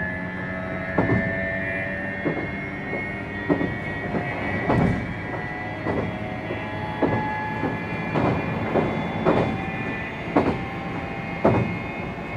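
JR 719 series electric multiple unit running, heard from inside the car: a steady whine from its thyristor phase-control traction equipment, with the jet-like sound that marks this car as an abnormal-noise unit. Wheels click over rail joints about once a second.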